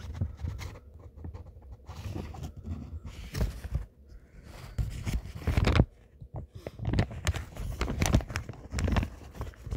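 Irregular rustling, clicks and low thumps of handling noise, with louder knocks around the middle and in the last few seconds.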